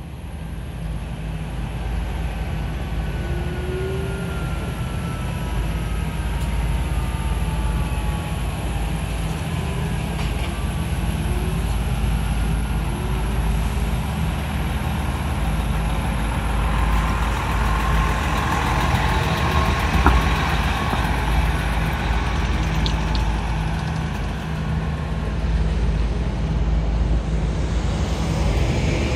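Heavy trucks' diesel engines running as they drive slowly off the ferry and across the yard: a deep, steady engine hum with faint rising and falling whines as the trucks pull away. A single sharp click about twenty seconds in.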